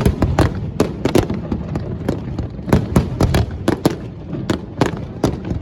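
Fireworks going off: a rapid, irregular run of sharp bangs, several a second, over a continuous low rumble.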